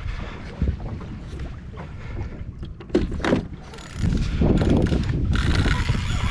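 Fishing reel being wound under load, its mechanism clicking and whirring, with wind buffeting the microphone on an open boat.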